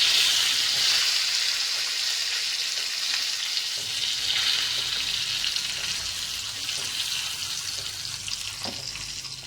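Crab pieces sizzling as they fry in oil in a pan, the sizzle loudest at first and slowly dying down, with a few light clicks near the end.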